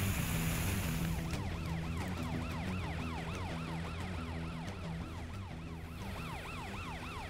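Cartoon police car siren, a fast rising-and-falling wail repeating about three times a second, starting about a second in, over background music. A hiss of spraying water is heard before the siren starts.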